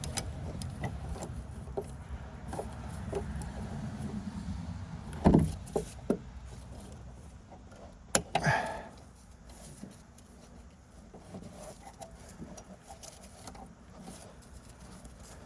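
Light metal clicks and knocks of vice grips and a brake-line fitting being worked by hand, with two sharper knocks about five and eight seconds in.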